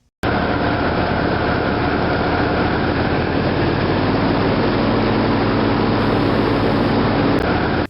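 Loud, harsh noise with a steady hum running through it. It starts suddenly and cuts off abruptly after about seven and a half seconds.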